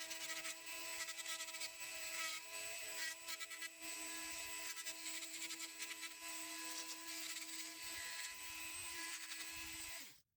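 A small machine-shop motor running steadily with a constant hum, with irregular light scraping and rubbing of metal over it; it cuts off abruptly near the end.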